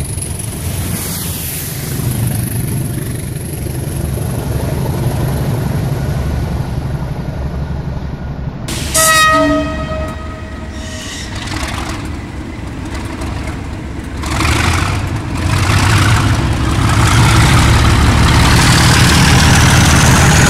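A train of railhead-treatment tank wagons rumbling past behind Class 20 diesel locomotives. About 9 s in, a Class 37 diesel locomotive gives a horn blast about a second long. Its English Electric V12 engine then opens up, getting louder in steps, with a rising turbocharger whistle near the end.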